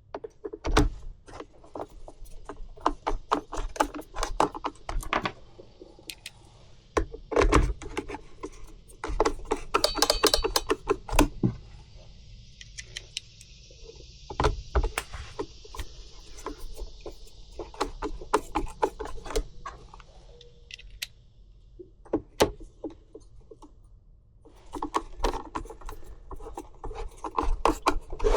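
Clicks, taps and knocks of plastic blower housing parts and tools being handled and fitted together while a Stihl BG 65C leaf blower is reassembled. A soft scraping or rubbing runs from about halfway through.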